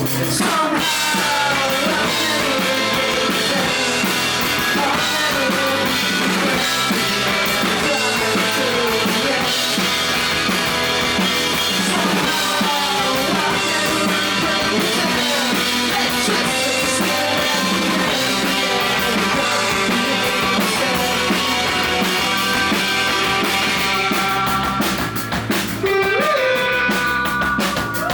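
Rock band playing live: drum kit and guitars, with a voice singing over them. The music drops back briefly near the end, then comes in full again.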